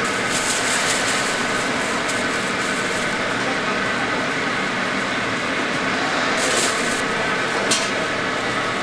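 Steady machine din from automatic fish cake making machinery, with a few brief plastic rustles and a click as fish cakes are handled and bagged.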